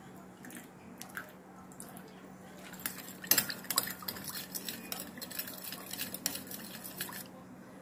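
Metal spoon stirring a thin sauce of soy sauce, fish sauce, sugar, cooking wine and vinegar in a ceramic bowl, clinking quickly and repeatedly against the bowl. The stirring starts about three seconds in and stops shortly before the end.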